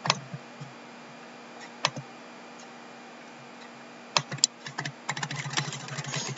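Computer keyboard typing: two single keystrokes in the first two seconds, then from about four seconds in a quick, rapid run of keystrokes.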